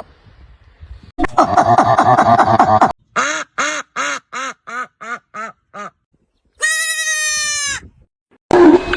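Animal calls in several short bursts: a rapid pulsing call, then a run of about a dozen short calls that rise and fall in pitch, about four a second, then one long call; a louder, noisier sound starts near the end.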